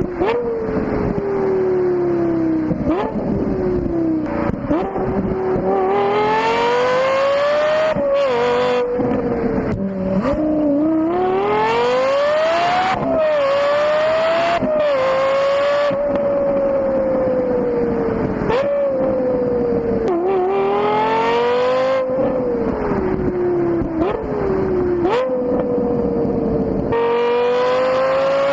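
Lexus LFA's V10 engine under hard driving, its pitch climbing steeply and then dropping abruptly several times as it shifts up, with stretches of falling pitch as it slows.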